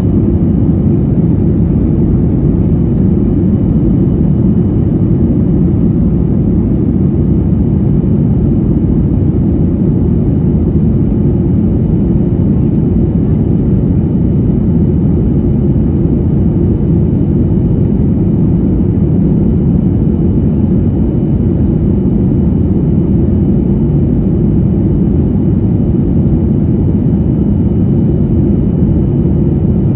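Aircraft cabin noise in flight: a steady, loud low rumble of engines and rushing air, with a faint high whine above it.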